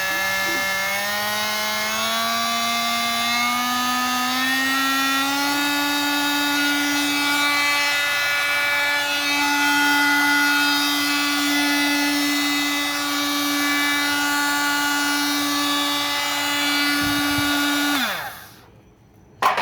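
Milwaukee M18 cordless oscillating multi-tool running with no load, its hum climbing in pitch over the first few seconds as it speeds up, then holding steady. It winds down and stops near the end.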